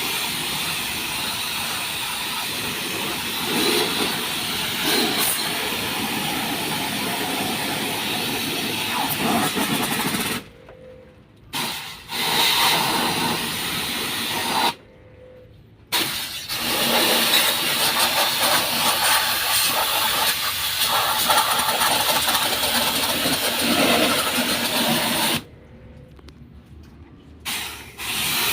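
A high-pressure water jet spraying while an air conditioner is washed: a steady hissing rush that stops abruptly three times, as the spray is shut off and started again.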